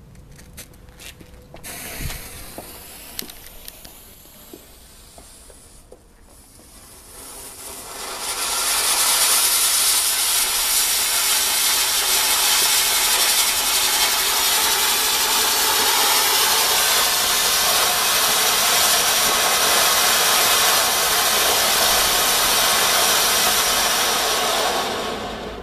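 Weco silver volcano fountain firework. A few clicks and a faint fizz come first; from about eight seconds in, the spark fountain burns with a loud, steady hiss that holds for some fifteen seconds and dies away just before the end.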